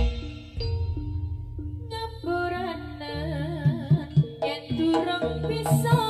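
Live Javanese jaranan ensemble music: kendang hand-drum strokes and a wavering, ornamented melody line over a steady low bass, with a quick cluster of sharp drum hits about four seconds in.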